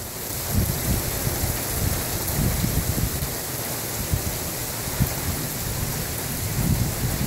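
Steady rain hissing down during a thunderstorm, with low thunder rumbling irregularly underneath.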